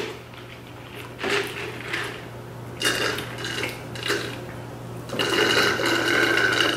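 Water being drunk from a clear plastic bottle, with a steady run of gulping and liquid sounds in the last second and a half or so. Before that come a few short clatters of eating from the plates.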